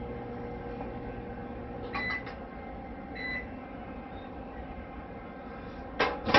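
A 900-watt RV microwave oven running with a steady hum, which stops about two seconds in with a short beep; a second beep follows a second later. Near the end come a few loud clunks, typical of the door latch being released and the door swung open.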